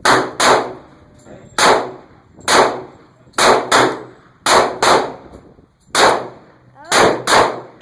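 Handgun shots fired in quick succession, about eleven sharp, loud reports, often in pairs a fraction of a second apart, each with a short ringing tail.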